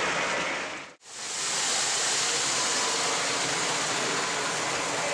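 O gauge model trains running on three-rail track: a steady rushing rattle of wheels and motors on the rails. It drops out about a second in and fades back up at the same level.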